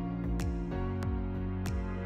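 Instrumental background music: held chords over a steady drum beat.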